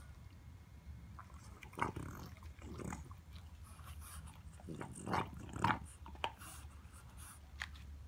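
French bulldog puppy gnawing and chewing a pig trotter: irregular crunches and wet chewing, the loudest run about five seconds in.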